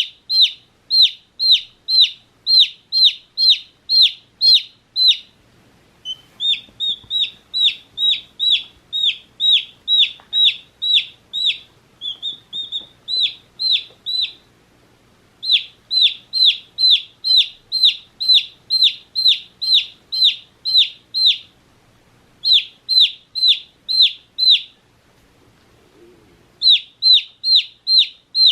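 One-day-old baby chick peeping loudly: a regular series of short, high, falling peeps, two to three a second, in runs broken by brief pauses.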